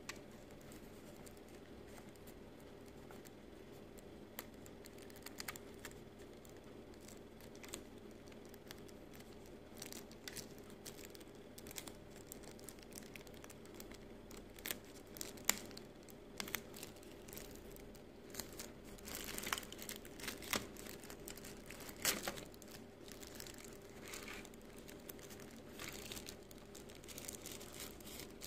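Clear plastic bag and tissue-paper wrapping crinkling as they are pulled off a model bus by hand. The crackles are sparse at first and grow busier from about a third of the way in, with the loudest rustles a little past the middle. A faint steady hum lies underneath.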